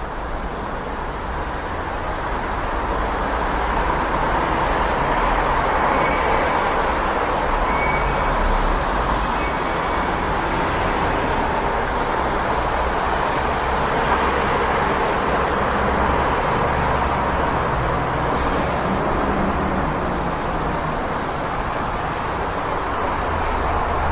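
City street traffic: a steady wash of passing vehicles with a low engine rumble underneath.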